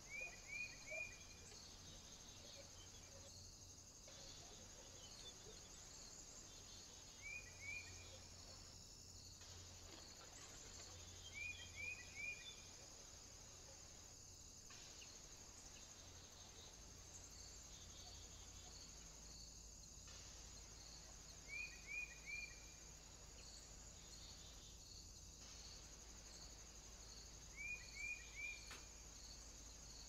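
Faint, steady high chirring of insects with regular pulses, broken every few seconds by a group of three quick high chirps, five such groups in all.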